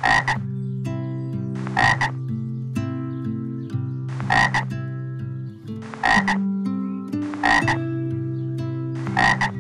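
Frog croaking: six short croaks, about one every one and a half seconds, over steady held musical chords that change every second or so.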